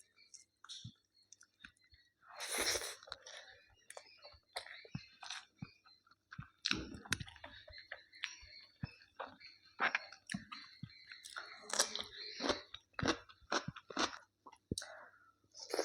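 A person chewing and crunching food close to the microphone, with irregular crunches and wet mouth clicks.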